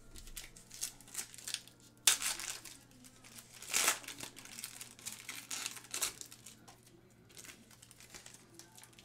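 Foil trading-card pack wrapper being torn open and crinkled by hand: a string of crackly rustles, the two loudest about two seconds and about four seconds in.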